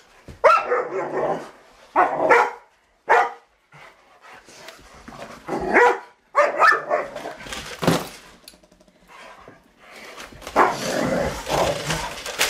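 Rottweiler barking: a string of loud single barks a second or two apart, running into a denser, noisier stretch of barking near the end.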